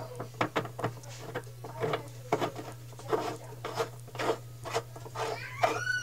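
Washing machine basket nut being spun down by hand on the threaded transmission post: irregular metal scraping and clicking, about two strokes a second, with a short squeak near the end.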